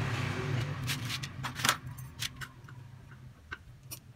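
Scattered sharp clicks and scratches of dry potting mix and roots being worked loose by hand from a bonsai's root ball. A low hum underneath fades out about two seconds in.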